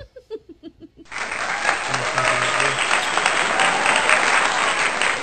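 Applause and cheering from a crowd, starting abruptly about a second in and continuing at a steady loud level.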